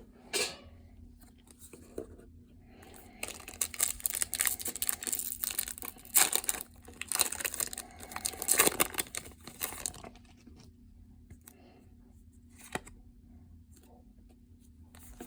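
A foil Pokémon booster pack wrapper being torn open and crinkled. There are a few light taps in the first seconds, then dense rustling and tearing from about three seconds in to about ten seconds.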